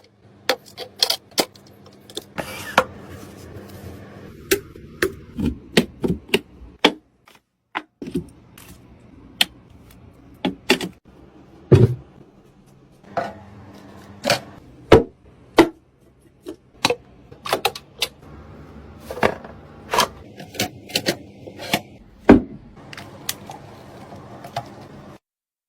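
Irregular sharp clicks, taps and knocks of computer hardware being handled and fitted into a PC case, some louder than others, with short pauses between runs of clicks, over a faint steady hum.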